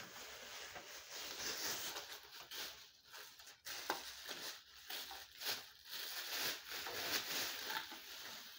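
Plastic bag crinkling and rustling in irregular bursts as it is handled and pulled off a wrapped object, with one sharp click about four seconds in.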